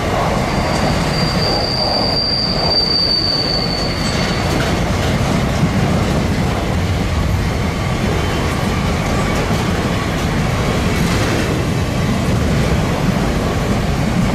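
Covered hopper wagons of a freight train rolling past close by, a steady rumble of wheels on rail with faint clicks over the joints. About half a second in, one high, steady wheel squeal starts and lasts about three and a half seconds as the wheels grind through the curve.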